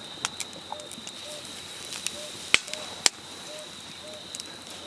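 Wood campfire crackling with irregular sharp pops, two of them loud and close together in the middle, over a steady high thin tone.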